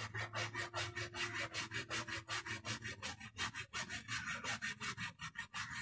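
A blade worked quickly back and forth on a green bamboo pole, cutting it down into a short piece: even scraping strokes, about six a second.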